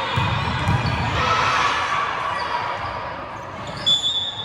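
Gym crowd and court noise during a volleyball rally, swelling about a second in; near the end a short, high referee's whistle blast.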